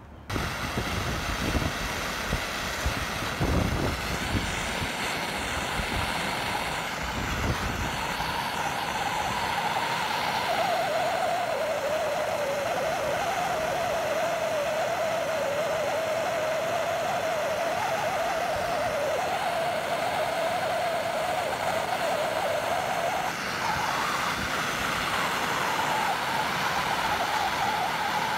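Gas blow lamp flame burning steadily while heating an end-feed copper pipe joint for soldering. It starts suddenly, and from about eight seconds in a wavering whine rides on the flame's steady rush.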